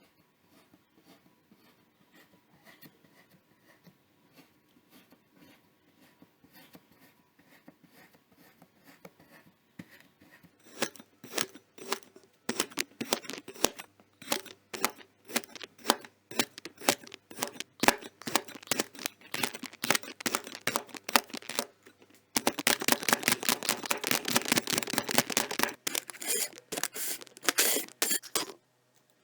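Kinetic sand being cut, crunching in crisp crackles: faint and sparse at first, much louder and denser from about ten seconds in, with a run of very fast, continuous crackling about three-quarters through, stopping just before the end.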